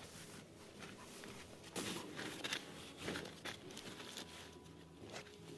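Sleeping bag fabric rustling and crinkling as it is pulled from its stuff sack and spread out by hand, in irregular swishes that are loudest about two and three seconds in.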